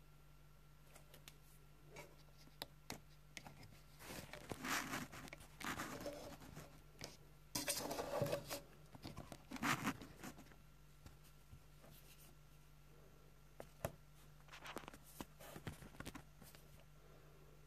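Praying mantis chewing through its insect prey's shell, heard very close: dry crunching, tearing and clicking in three spells of a few seconds each, with quiet gaps between.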